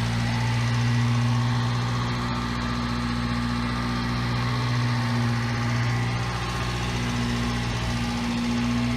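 1991 Subaru Sambar's rear-mounted four-cylinder engine idling steadily.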